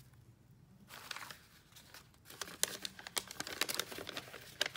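Plastic bubble wrap crinkling and crackling as it is handled and pushed aside. It starts about a second in, and the sharp crackles come thicker from about halfway.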